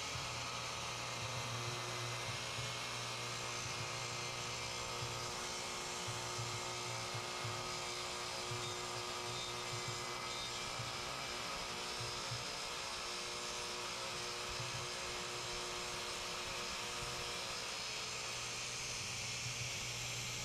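Power tool motor running steadily with a constant whine.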